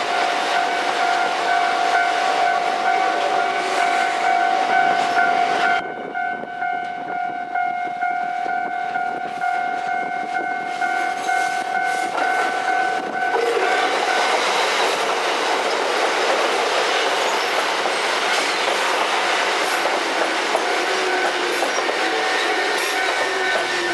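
Japanese level-crossing warning bell ringing steadily while a Kotoden electric train passes. The bell stops about halfway through, and the rumble and wheel clatter of a train passing close takes over, with a falling tone near the end.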